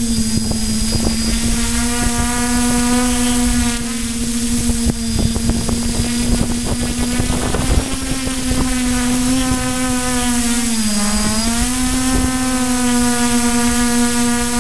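Electric motors and propellers of a multirotor camera drone, heard through its onboard camera, running with a steady whine while it descends, dipping briefly in pitch about eleven seconds in.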